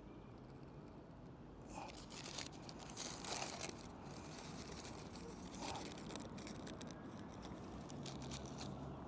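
Paper wrapping crinkling and tearing in irregular crackly bursts, heaviest from about two to six seconds in, over a faint low hum.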